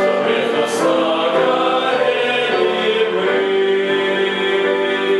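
Male vocal ensemble singing a Russian hymn in several parts, settling about halfway through into a long held chord.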